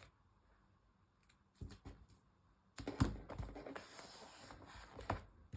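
Light clicks, taps and rustles of paper and small craft tools being handled on a desk, with a louder knock about three seconds in.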